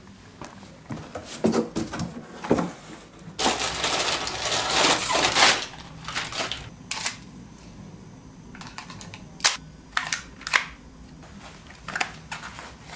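Handling noise: a string of sharp clicks and knocks, with a louder rustling scrape lasting about two seconds near the middle.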